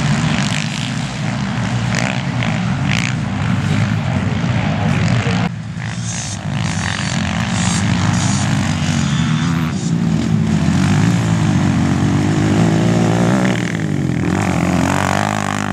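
Racing quad (ATV) engines revving up and down as the quads ride round a dirt track. The sound changes abruptly about five and ten seconds in, and rises and falls in pitch near the end.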